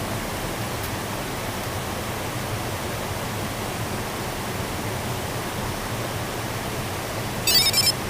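Steady, even rushing noise with no pitch to it, like wind or running water. Near the end there is a short, high-pitched chirp of about half a second.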